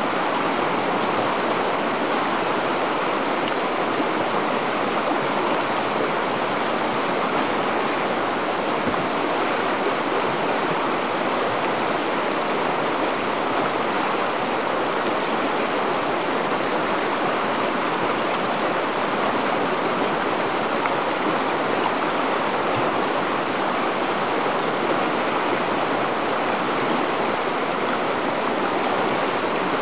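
Whitewater rapids rushing steadily: a continuous, even rush of churning river water with no let-up.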